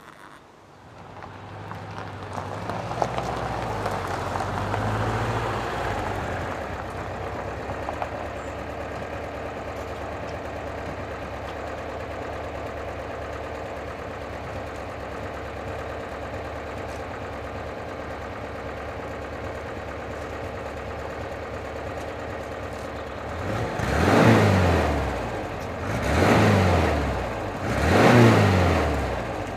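VW T25 van's engine running at a steady idle, then revved three times near the end, each rev rising and falling in pitch.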